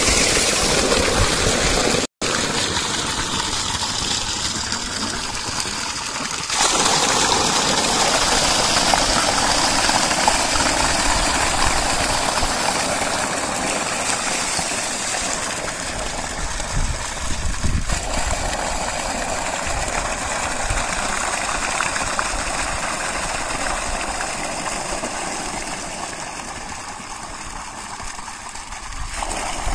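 Irrigation pump set's outlet pipe gushing a heavy stream of water that splashes into a concrete tank and onto the ground, a steady rushing with a momentary dropout about two seconds in.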